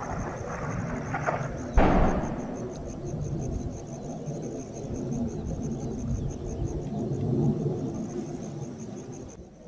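Distant airstrike explosion: a sudden boom about two seconds in, followed by a long rolling rumble that slowly dies away. Crickets chirp faintly and steadily behind it.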